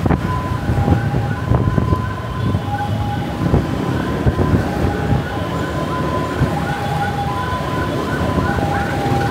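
Two-tone emergency-vehicle siren alternating between a high and a low note about every half second, with a faster repeating chirp above it, over the low rumble of city traffic and engines.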